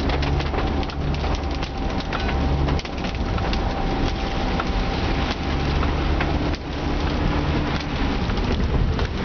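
Taxi engine and road noise heard from inside the cabin, a steady low drone that drops briefly twice, with heavy rain hitting the roof and windscreen as many small ticks.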